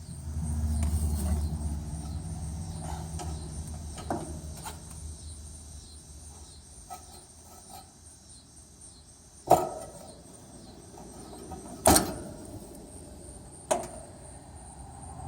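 Three sharp metallic clicks in the second half, from work on an air-conditioner condenser's capacitor wiring, with a low rumble over the first few seconds and a steady high insect drone behind.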